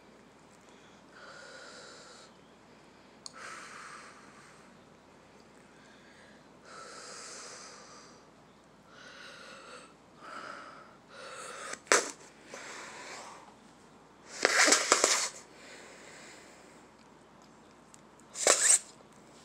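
Bubble gum being blown into big bubbles: repeated soft puffs of breath pushed through the gum, a sharp snap about twelve seconds in, a louder crackly burst a little later, and a sharp pop near the end as a bubble bursts.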